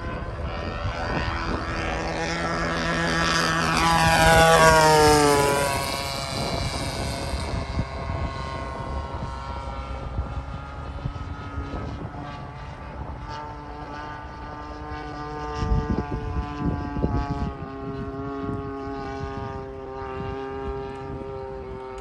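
Single-cylinder two-stroke DLE-35RA petrol engine of a large RC P-47 Thunderbolt model in flight. A loud pass about four to five seconds in, its pitch dropping as the plane goes by, then a quieter, steady drone as it flies farther off.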